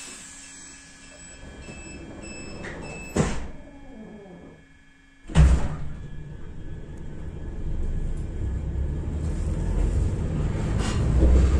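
Inside an EN57 electric multiple unit's motor car: the passenger doors shut with a loud bang about three seconds in. About two seconds later a heavy clunk comes as power is applied, and the low rumble of the traction motors grows steadily louder as the train starts to pull away.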